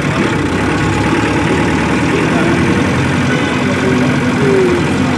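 Vehicle engine running steadily, with a dense, even rumble.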